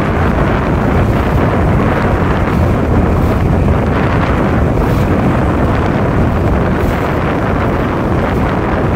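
Steady wind buffeting the microphone on a boat under way, with the boat's motor running underneath.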